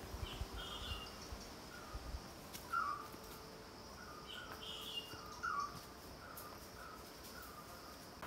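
Birds calling in short, repeated notes over a steady high-pitched insect buzz.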